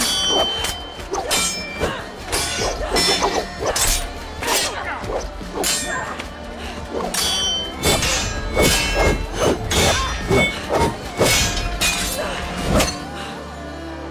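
Steel swords clashing in quick exchanges, each blade-on-blade strike ringing briefly. The strikes stop about a second before the end.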